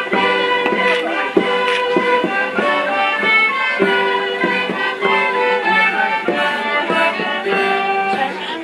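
A small live band of violins with a guitar plays a traditional folk dance tune, one held note following the next.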